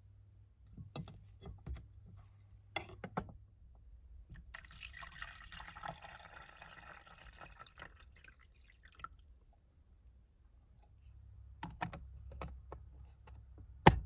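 Liquid poured into a container for about three seconds, with clicks and knocks of handling before and after, and one sharp, loud click near the end.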